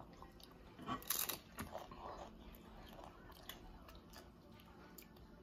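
Crisp stacked potato chips bitten with a sharp crunch about a second in, then chewed with smaller, fainter crunches.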